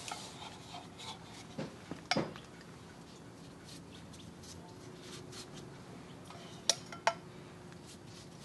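Barbecue sauce being brushed onto ribs on a smoker's wire rack: soft brushing with a few light metal clicks and knocks, the sharpest two close together about seven seconds in.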